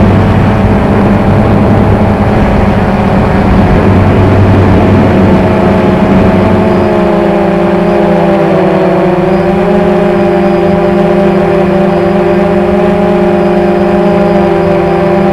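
XK X380 quadcopter hovering, its motors and propellers making a steady hum of several tones together. The pitch wavers slightly as the motors adjust to hold the hover.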